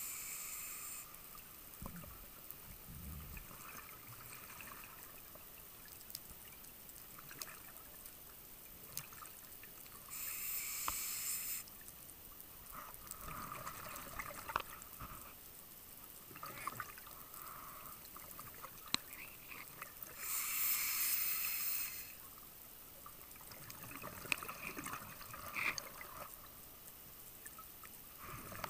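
Scuba diver's breathing heard underwater through a camera housing: two bursts of exhaled regulator bubbles, hissing and bubbling, about ten seconds apart, with faint scattered clicks between breaths.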